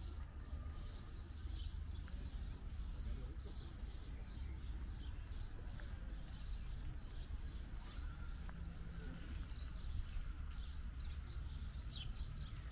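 Small birds chirping repeatedly over a steady low rumble of city background.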